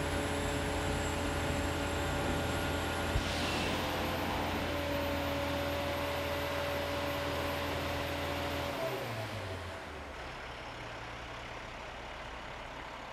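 Sewer vacuum truck's engine and vacuum blower running steadily while the tube sucks water from a storm-drain catch basin. About nine seconds in, the suction winds down and stops because the truck's tank is full, and the engine keeps running more quietly. One sharp click about three seconds in.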